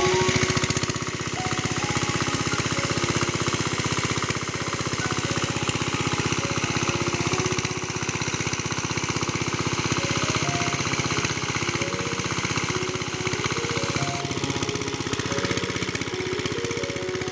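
A small motor running with a rapid, steady mechanical rattle, under background music with a simple melody.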